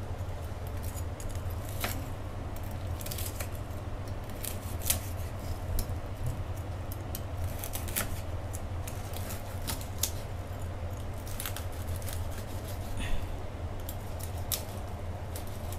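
Kitchen knife slicing through crispy pork belly (moo krob) on a wooden cutting board: irregular crunching cuts and sharp knocks of the blade on the board. A steady low hum runs underneath.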